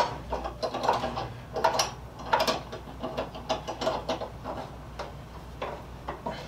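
Saw vise being clamped to the edge of a wooden workbench: metal parts of the vise clink and knock, and the clamp screw turns, in a string of irregular clicks that thin out toward the end.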